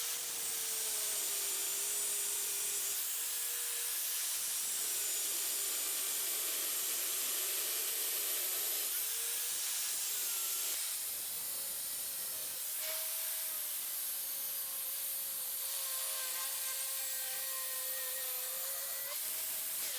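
Angle grinder grinding sheet-metal pieces into shape: a steady gritty hiss over the motor's whine, which dips and shifts in pitch as the disc bears on the metal.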